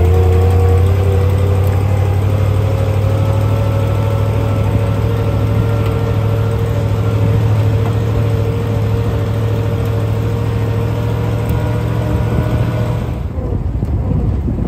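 1935 Ford fire truck's flathead V8 engine running as the truck drives along, a steady low drone with a whine that slowly rises in pitch. The higher sound drops away near the end.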